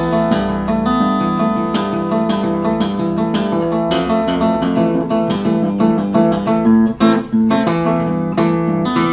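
Steel-string acoustic guitar played fingerstyle: a freely improvised fingerpicked pattern, bass notes on changing strings under higher notes that ring together over a few chords, with a short dip about seven seconds in.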